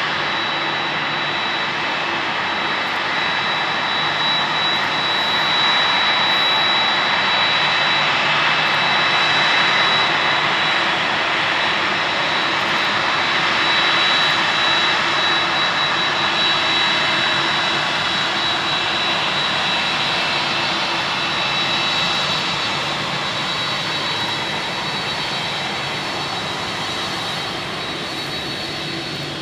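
Jet engines of a Boeing 787-8 running, Rolls-Royce Trent 1000s: a loud steady rush with a high, steady whine over it. It swells slightly about a third of the way in and eases off near the end.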